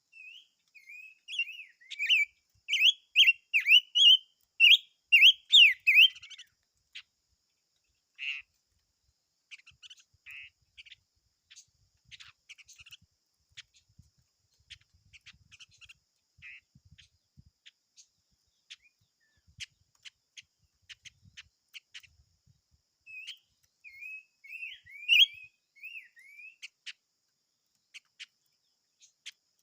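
A small songbird singing quick, warbling phrases, loudest over the first six seconds and again near the end, with scattered short chips and ticks between.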